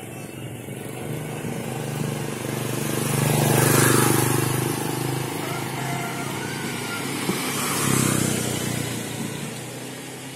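Motorcycles passing on the road, engines droning: the loudest goes by about four seconds in and a second passes about eight seconds in, then the sound fades.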